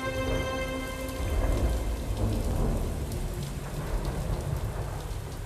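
Steady rain falling, with a low rolling rumble of thunder that swells a second or two in. Held musical notes fade out about a second in.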